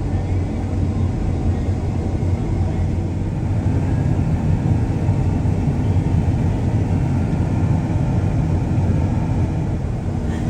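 A heavy vehicle engine running steadily, a continuous low rumble with no change in pace.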